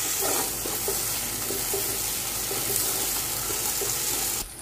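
Masala paste frying in oil in a metal kadai: a steady sizzle, with the light scrape of a metal spoon stirring it. The sizzle stops abruptly near the end.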